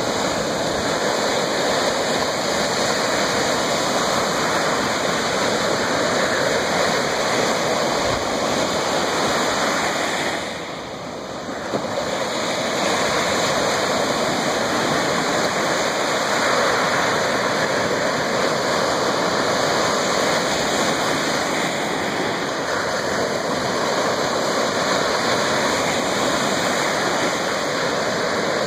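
Lake Superior surf washing on the shore: a steady rush of water, with a brief lull about ten seconds in.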